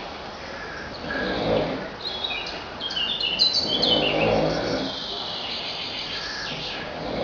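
A sleeping man snoring heavily, with two deep rasping snores about three seconds apart and another beginning near the end. Between the snores, birds chirp in quick high notes.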